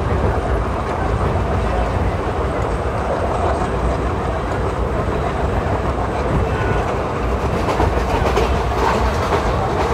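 Steady rumble and clatter of ICF passenger-coach wheels on the track, heard from inside the moving coach, with a run of sharper clicks over the last couple of seconds.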